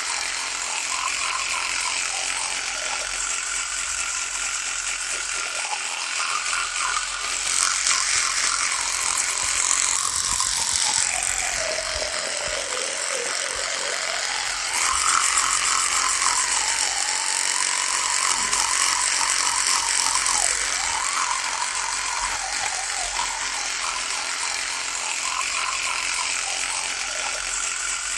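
Electric toothbrush buzzing continuously. Its pitch wavers and sags noticeably about halfway through before climbing back up.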